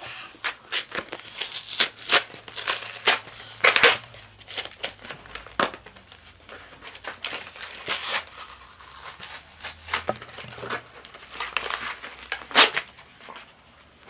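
A mailed package being opened by hand: its packaging crinkled and torn in irregular rustles and rips, with louder tearing bursts about four seconds in and again near the end.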